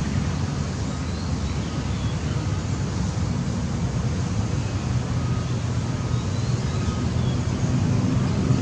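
Steady low rumble with a hiss over it, outdoor background noise with no distinct events.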